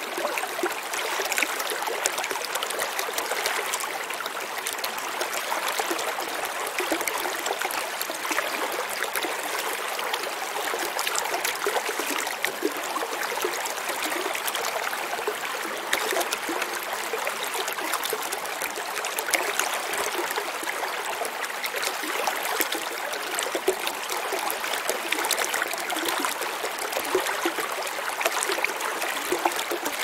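Shallow stream running over rocks: a steady rushing and babbling of water.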